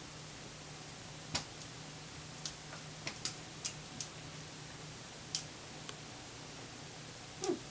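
A Norwegian Elkhound eating dry kibble from a stainless steel bowl: scattered sharp clicks and crunches at an uneven pace, about eight or nine in all.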